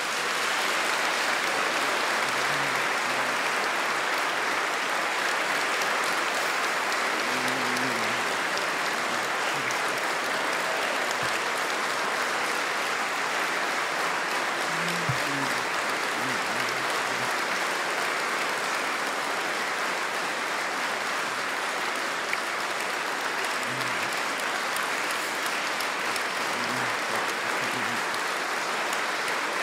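A large audience applauding steadily and at length.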